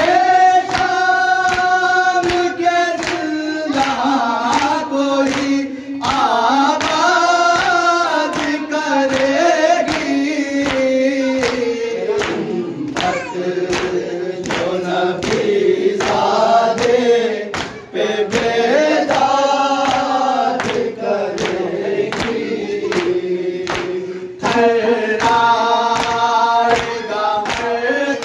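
Noha, a Shia lament, chanted in unison by a group of male voices to a slow, wavering melody. It is kept in time by a steady beat of hands striking chests (matam).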